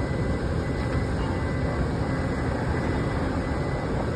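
Steady low rumble of idling vehicle engines, with no change in level.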